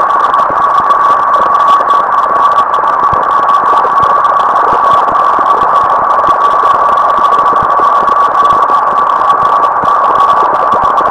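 Computer-generated procedural sound from a p5.js pixel-sorting algorithm. It is a loud, steady band of noise centred around 1 kHz, with a thin steady tone just above it and fast crackles throughout.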